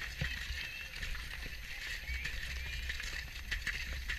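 Horse cantering on grass: irregular hoofbeats and tack rattling, with wind buffeting the microphone as a constant low rumble.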